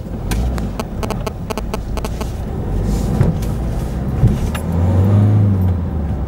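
A car's engine and road noise heard from inside the car as it drives slowly up to a stop, with a low hum swelling briefly about five seconds in. Many short sharp clicks and rattles sound over it.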